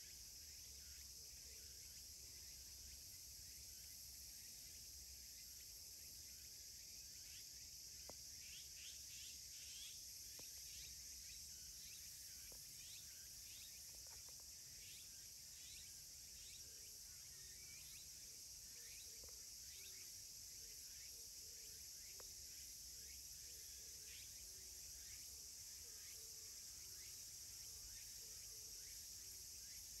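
Faint outdoor ambience: a steady high-pitched insect chorus, with many short, soft high chirps repeating through the middle stretch and a few faint clicks.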